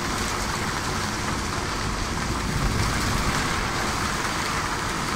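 Steady rush of wind and water noise aboard a trimaran sailing fast, at about 14 knots.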